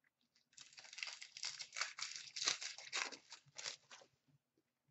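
Wrapper of a 2016-17 Upper Deck hockey card pack being torn open and crinkled by hand: a run of quick crackling rips lasting about three and a half seconds.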